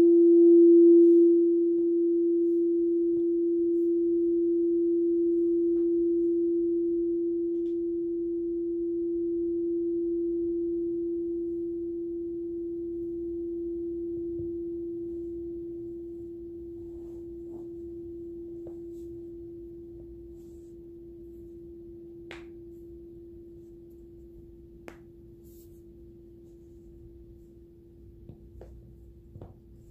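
Quartz crystal singing bowl ringing a single pure, steady tone. The wand leaves the rim about a second in, and the tone then fades slowly and evenly. A few faint clicks come near the end.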